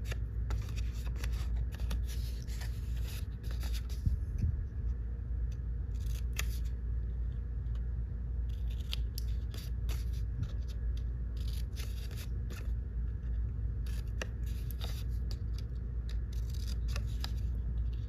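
Small scissors snipping notches into 65-pound cardstock at the score lines: short crisp cuts in several irregular runs with pauses between them, over a steady low room hum.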